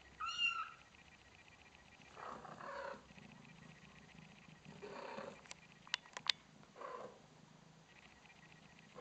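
Cat purring as a soft, pulsing rumble while four-week-old kittens nurse, with a brief high mew right at the start. Soft rustling swells come and go, and there are a few sharp clicks about six seconds in.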